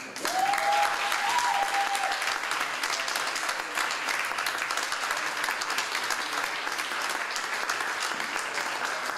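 Audience applauding steadily, with a brief held whoop rising over the clapping near the start.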